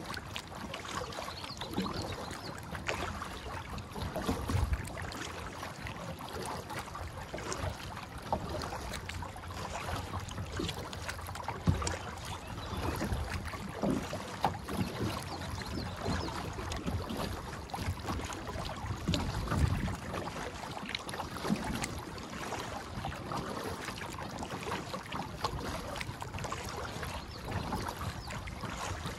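Kayak being paddled through choppy water: irregular splashes and slaps of water against the plastic hull over a steady wash, with a low wind rumble on the microphone.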